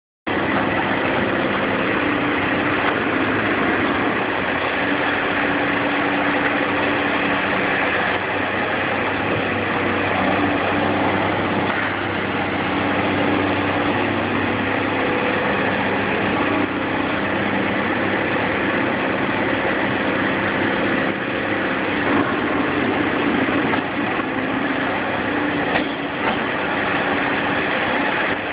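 Large Volvo crawler excavator's diesel engine running steadily, with a constant low hum, while its boom works a demolition attachment through rubble.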